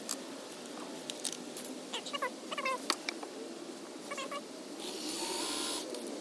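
A cat giving a run of short meows and chirps, several per second in clusters. About five seconds in there is a brief burst of hissing noise.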